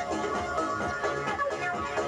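Instrumental music with a regular beat accompanying the act.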